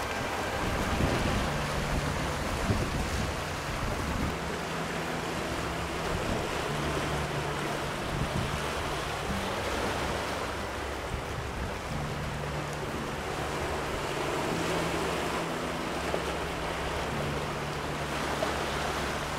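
Sea surf washing and breaking over shoreline rocks, a steady rushing sound, with wind buffeting the microphone. A faint low hum comes and goes underneath.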